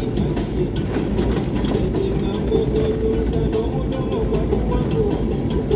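Vehicle driving over a rough dirt road: steady engine and road rumble with frequent rattles and knocks from the bumps.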